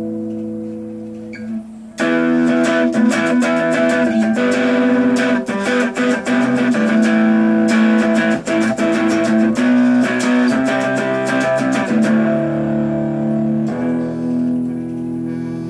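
Guitar played through a small homemade 9-volt battery-powered amplifier built into a .50-cal ammo can, heard from its speaker. A chord rings, then about two seconds in it gets louder with fast strummed chords, and it ends on a long held chord.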